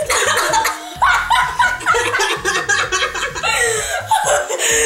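Several teenage girls laughing together in fits and giggles, breaking off briefly and starting again.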